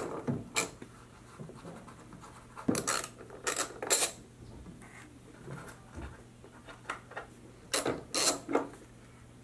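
Socket ratchet clicking in several short bursts with pauses between, backing out the blower-motor mounting bolts on a heater box.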